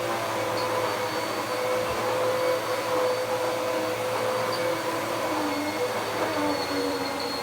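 Dirt Devil PowerMax Pet upright vacuum cleaner running steadily over carpet, a constant motor whine over a rushing airflow noise, its pitch wavering slightly.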